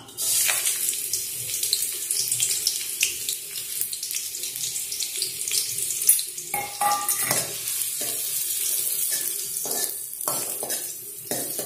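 Sliced onions dropped into hot oil in a kadai, sizzling loudly from the moment they go in. From about halfway through, a spoon knocks and scrapes against the pan as the onions are stirred.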